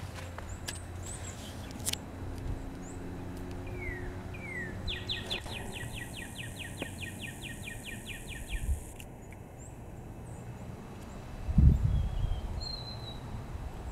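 Songbirds calling: scattered chirps and two short downward whistles, then one bird singing an even trill of about five notes a second for three to four seconds around the middle. Near the end, a brief low thump is the loudest sound.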